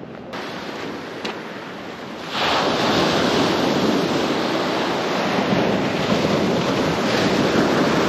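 Sea waves washing onto the beach, with wind on the microphone. The surf turns suddenly louder a little over two seconds in and holds steady after that.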